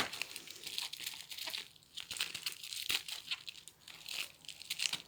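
Bubble wrap and plastic packaging crinkling and tearing in irregular crackles as a small parcel is unwrapped by hand.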